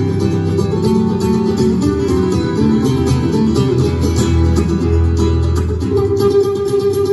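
Two acoustic guitars playing a duet in nouveau-flamenco style, with quick runs of plucked notes over a steady accompaniment, amplified through the hall's sound system.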